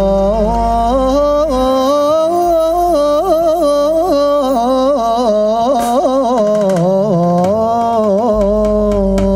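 A male singer holding a long, heavily ornamented melismatic phrase of a Moroccan Sufi devotional song, his voice wavering and turning around the pitch over a steady low instrumental backing. Near the end the line settles into one held note.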